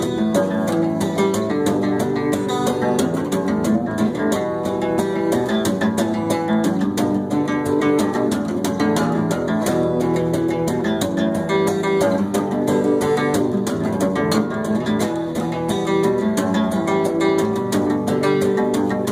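Instrumental break of a song: guitar strummed steadily with a quick rhythm, no singing.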